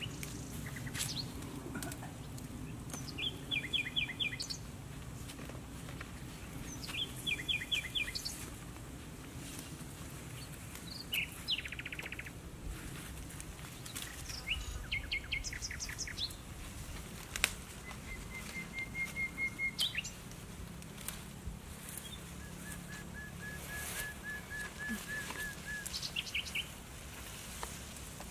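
Birds calling: short phrases of quick high notes repeated every few seconds, and near the middle and again toward the end a long string of evenly spaced notes. Faint rustling of leafy plants underneath.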